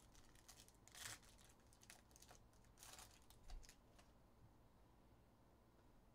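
Near silence, with faint rustling and clicking of trading cards and a foil pack wrapper being handled, in two short bursts about one and three seconds in.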